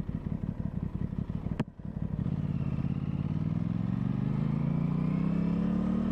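2023 Aprilia Tuono 660's parallel-twin engine pulsing at low revs, then a sharp click about one and a half seconds in, after which the engine pulls steadily up through the revs under acceleration, its pitch rising smoothly.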